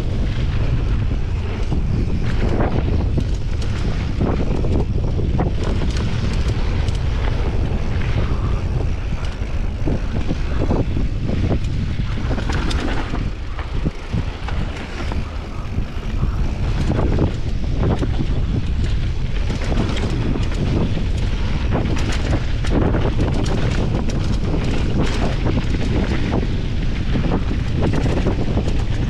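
Mountain bike descending a dusty dirt and gravel trail at speed: wind buffeting the microphone over the tyres rolling on dirt, with frequent rattles and knocks from the bike over bumps. Briefly quieter about 14 seconds in.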